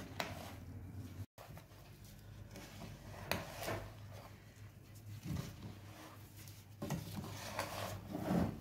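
Slotted spatula stirring and scraping a dry, crumbly semolina and milk powder mixture around a nonstick frying pan while it roasts on low flame, in intermittent scratchy rubs over a low steady hum.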